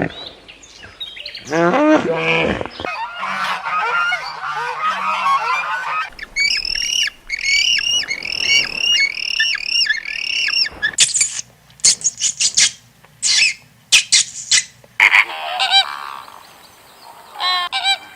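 A string of bird calls, one kind after another. A pitched call comes first, then busy chattering. In the middle there is a steady run of about ten short repeated calls, each with a quick drop in pitch. Near the end come sharp, harsh squawks and more calls.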